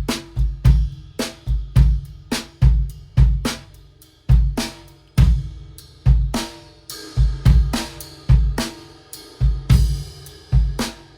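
Acoustic drum kit played in a steady groove: bass drum, snare and hi-hat, with cymbal wash ringing more in the second half.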